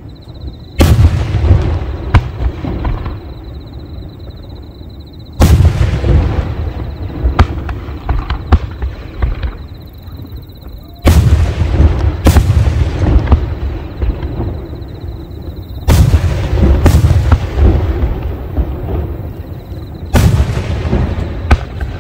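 Aerial firework shells bursting close overhead: about six loud booms a few seconds apart, each followed by a rolling echo and crackle, with a few smaller pops between them.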